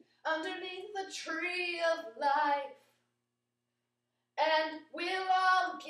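A young woman's voice singing high, wordless phrases, breaking off for about a second and a half in the middle before starting again.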